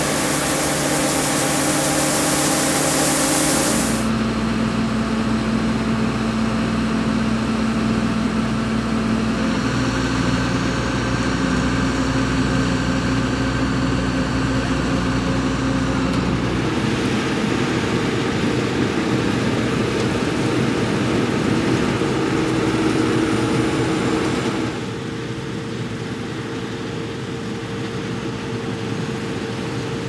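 Claas Lexion 560 combine harvester running. For the first four seconds grain pours with a loud hiss from its unloading auger into a trailer. After that only the engine is heard, running steadily and changing in tone with each cut, and it is quieter for the last few seconds.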